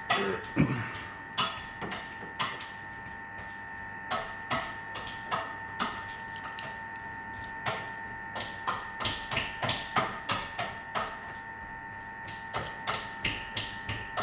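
Small metal lock parts and tools clicking and tapping while a lock is worked on and reassembled: an irregular run of sharp clicks and knocks, a few a second, with several louder taps about a second and a half in and again around ten seconds in.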